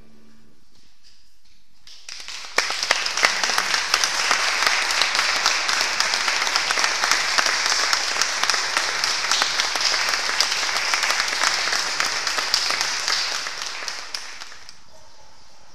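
Audience applauding: the clapping starts about two seconds in, swells quickly to a steady dense patter, and dies away near the end.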